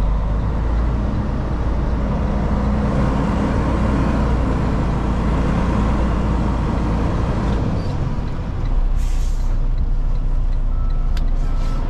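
Semi-truck diesel engine running, heard from inside the cab. About nine seconds in there is a short hiss of air, and near the end a backup alarm starts beeping steadily as the truck goes into reverse.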